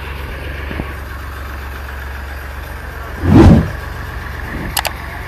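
Engine of a small trailer-mounted borewell drilling rig running steadily with a low hum. A loud thump about three and a half seconds in, and a couple of sharp clicks near the end.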